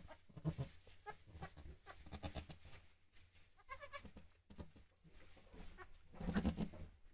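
A goat doe and her newborn kid calling: short, low-pitched calls from the doe as she tends the kid, one longer low call near the end, and a higher-pitched bleat about four seconds in.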